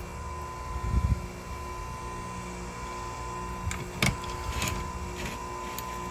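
Electric chainsaw chain sharpener's motor running with a steady whine, with dull knocks about one and four seconds in and a few short sharp ticks in the second half.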